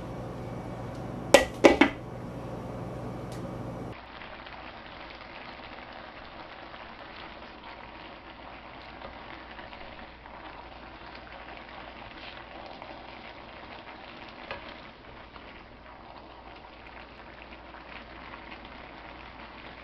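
Chicken sausage, green beans and noodles frying in a wok, a steady sizzle, with a few sharp knocks a little over a second in.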